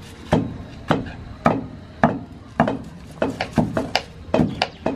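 A wooden pestle pounding ginger, garlic and dried red chillies in a wooden mortar, with strong knocks about twice a second. Lighter knife chops on a wooden board fall between them.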